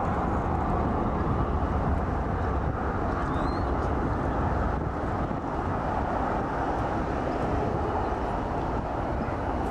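Jet airliner engines making a steady, deep rushing noise that holds at an even loudness.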